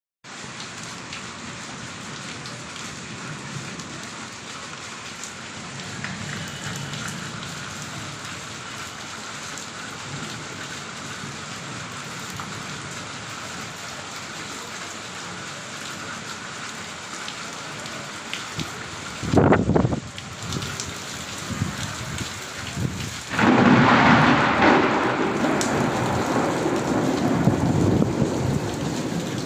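Steady rain falling. Past the middle comes a short, sharp crack of thunder, and a few seconds later a louder, longer peal of thunder that slowly fades.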